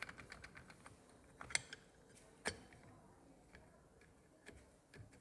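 Faint, sparse clicks and light metallic clinks of small engine parts being handled and fitted by hand, with two sharper clicks near the middle.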